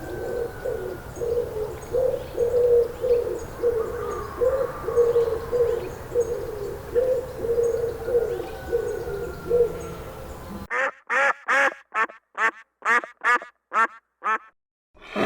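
Ducks quacking over a steady outdoor background noise; after a cut about eleven seconds in, a clean run of about ten short, evenly spaced quacks.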